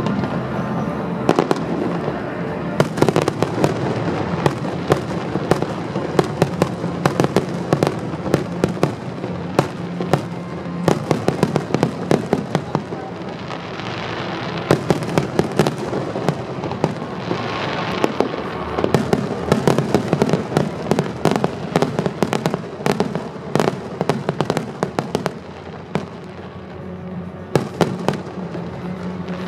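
Aerial fireworks display: rapid volleys of shell bursts, many bangs a second, thinning briefly near the end, with music playing underneath.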